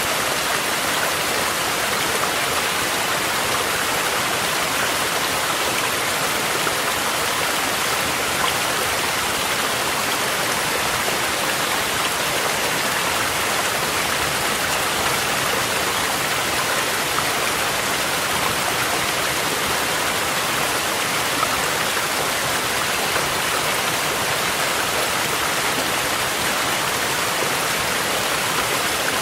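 A mountain stream rushing over rocks, mixed with steady rain, as one even, continuous water noise with no breaks.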